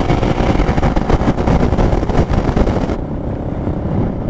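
Motorcycle riding at highway speed: wind buffeting the microphone over the engine's running rumble. About three seconds in the high hiss drops away abruptly and the low rumble goes on.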